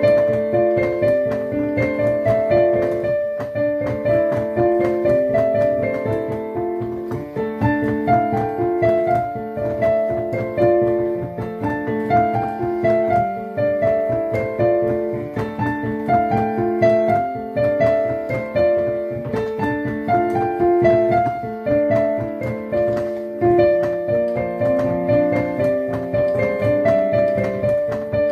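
Piano playing a continuous melody of short notes over steady accompanying chords.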